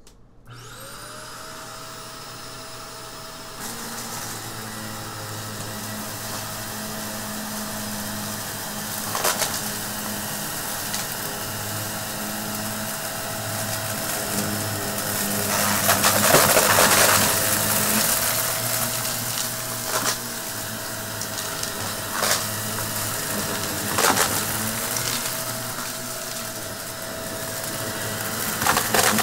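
Shark upright vacuum cleaner starting up, its motor whine rising in the first second, then running steadily over a shag rug. Grit and small debris crackle and rattle as they are sucked up, in sharp bursts and a longer loud stretch about halfway through.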